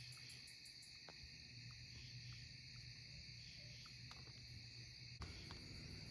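Near silence: crickets and other insects trilling steadily, with a faint low hum underneath and a single click about five seconds in.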